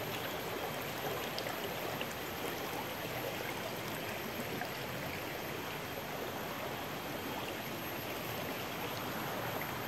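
Shallow rocky river running over stones: a steady rush of flowing water.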